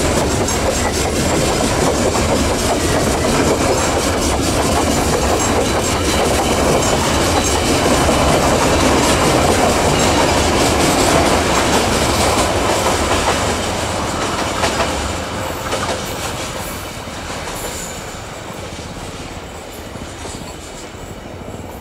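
Long string of open coal hopper wagons rolling past on a curve, wheels clicking over the rail joints. The sound fades over the last several seconds as the end of the train goes by.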